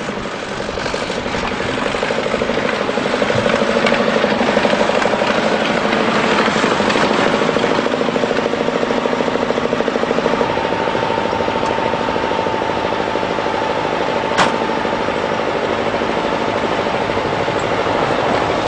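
Crawler tractor's diesel engine running hard under load with a loud, fast, even rattle of firing beats. A thin steady whine joins about halfway, and there is a single sharp click about three-quarters of the way through.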